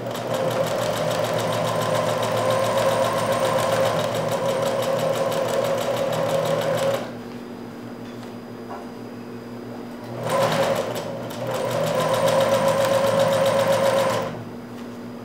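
Singer sewing machine stitching a seam through several folded layers of fabric, running steadily for about seven seconds, stopping, then a short start and a second run of about three seconds near the end.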